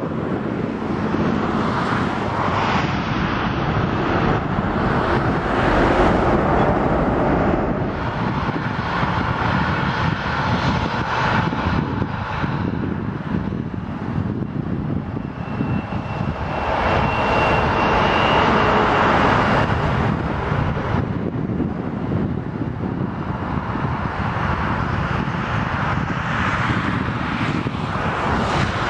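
Boeing 787-9 airliner's jet engines rumbling through the landing rollout as the aircraft slows on the runway, the noise swelling and easing a few times.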